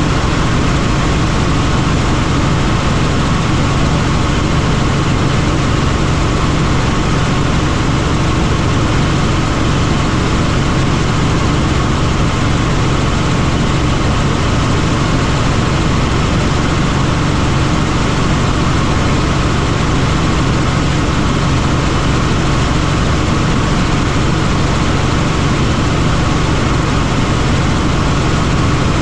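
Helicopter in flight: the steady, loud drone of its rotor and turbine engine, unchanging throughout.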